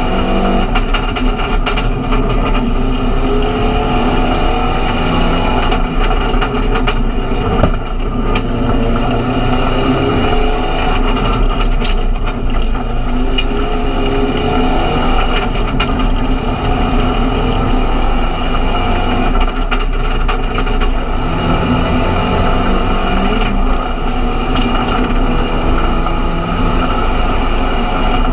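Seat Leon Supercopa MK1 race car's engine heard from inside the cockpit, driven hard, its pitch rising and dropping again and again through the gears, with road and wind noise and scattered short knocks.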